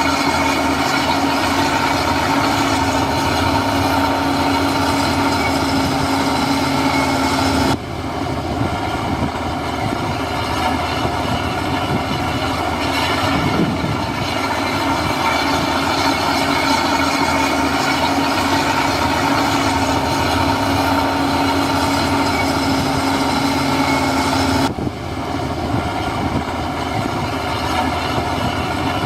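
Heavy diesel earthmoving machinery, a crawler bulldozer's engine and steel tracks, running steadily with a continuous metallic clatter. The sound changes abruptly twice, about 8 and 25 seconds in.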